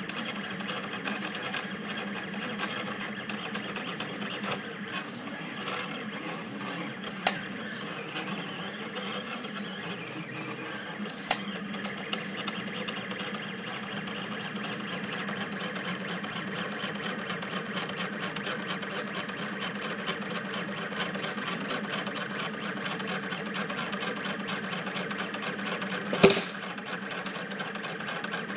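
Rostock delta 3D printer printing at high speed, its stepper motors whining and buzzing in a steady run of tones. A few sharp clicks cut in, the loudest near the end.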